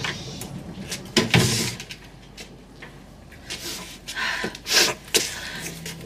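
A pub's wooden front door shutting with a thud about a second in, followed by a few shorter, breathy sounds near the end.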